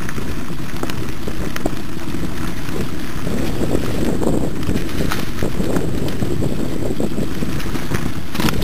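Wind buffeting the microphone of a camera riding on a mountain bike down a rough dirt singletrack, with a steady rumble from the ride and scattered clicks and knocks as the bike rattles over the ground, a sharper knock near the end.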